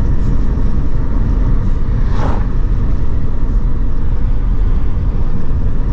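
Steady low rumble of road and wind noise inside a Hyundai car driving at cruising speed. A brief sharper sound comes about two seconds in.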